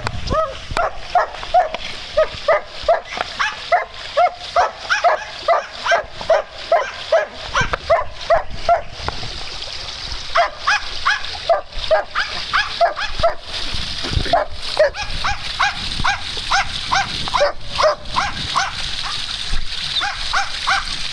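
A dog barking over and over, short barks about two to three a second, with a few short breaks, the longest around fourteen seconds in.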